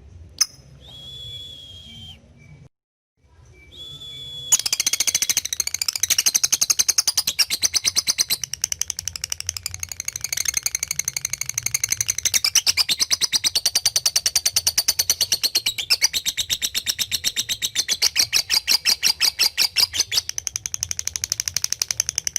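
Lovebird calling: a short high note, then from about four and a half seconds in a long, fast run of sharp high chattering notes, many per second, kept up without a break.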